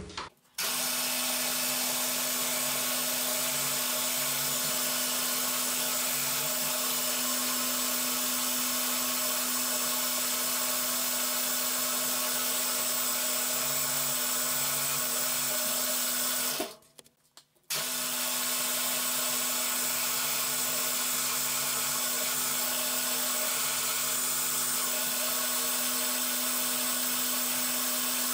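Cormak ZX7045 mill-drill running steadily while drilling small M5 holes into the end of an aluminium bracket, with a constant hum. The sound cuts out for about a second partway through, then carries on unchanged.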